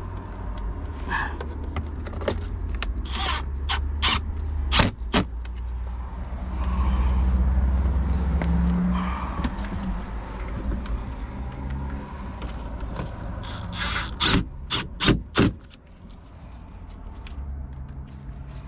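Sharp clicks and taps of small parts and screws being handled and set in place during ignition switch reassembly, in two clusters, with a brief high squeak among them, over a steady low rumble.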